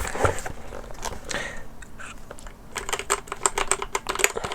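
Keys of an ADX Firefight WMK05 compact mechanical keyboard being pressed. First come a few scattered clacks, then a quick run of keystrokes in the second half.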